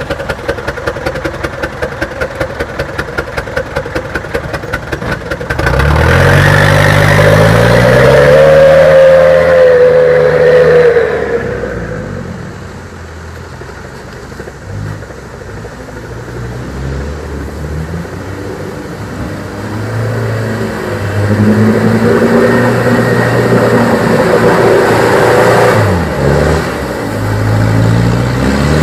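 Mitsubishi Canter light truck's diesel engine labouring under load through deep mud: an even pulsing at first, then the revs rise sharply about five seconds in and stay high for several seconds. The revs drop back for a while, then climb again in the second half.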